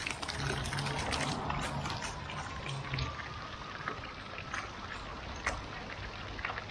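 Water jets of a small ground-level fountain spraying and splashing onto wet stone paving: a steady spatter of falling water with scattered sharp splashes.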